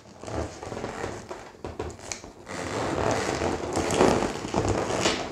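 Latex balloons rubbing and stretching against each other as a black 350 twisting balloon is tied onto the nozzle of a 12-inch link balloon. The rubbing is uneven and scratchy and grows a little louder toward the end.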